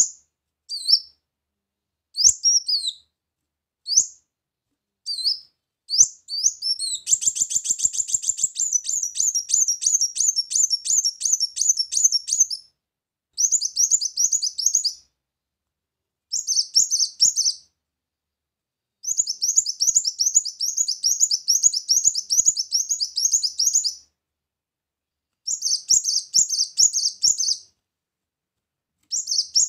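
Kolibri muncang sunbird singing: a few single high chirps about a second apart, then, from about seven seconds in, bursts of fast high twittering song lasting one to five seconds, with short pauses between them.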